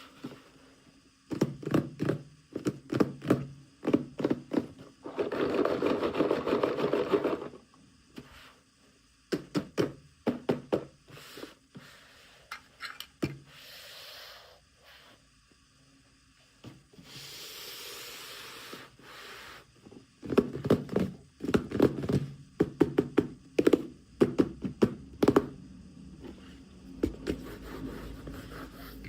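Small toy pieces and packaging being handled during an unboxing: clusters of light taps and knocks, with a few stretches of scraping.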